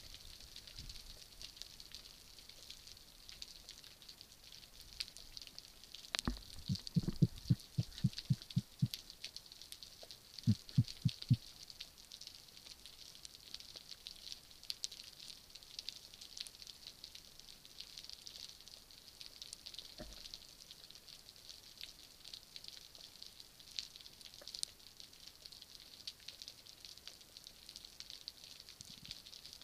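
Underwater ambience of a rocky seabed: a steady fine crackling, like sizzling. About six seconds in, a sharp click is followed by a quick run of about ten low pulses. A shorter run of four low pulses comes about ten seconds in.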